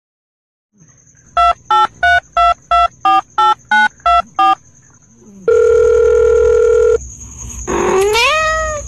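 Ten short electronic beeps in quick succession at varying pitches, like phone keypad tones, followed by a longer steady beep. Near the end a cat meows once, rising and then falling in pitch.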